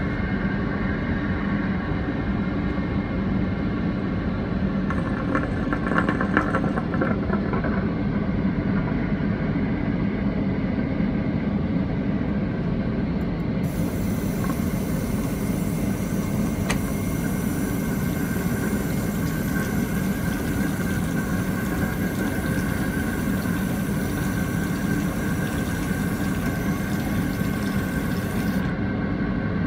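Airliner lavatory sink: water runs into the basin over the steady low drone of the aircraft. About 14 seconds in, a loud hiss from the sink's suction drain starts as the water is pulled down. It runs for about 15 seconds, then cuts off suddenly.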